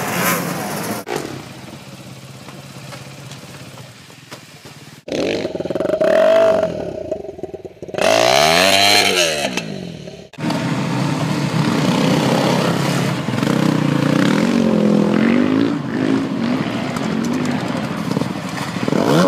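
Dirt bike engines revving, the pitch climbing and falling again several times across a run of abruptly cut clips, with a quieter stretch between about one and five seconds in.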